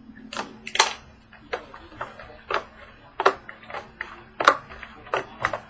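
About a dozen irregular sharp clicks and snaps from trading-card packaging and cards being handled.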